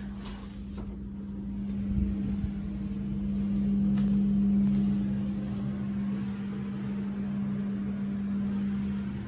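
A steady low mechanical hum, like a fan or ventilation unit, over a faint rushing noise; it swells a little in the middle.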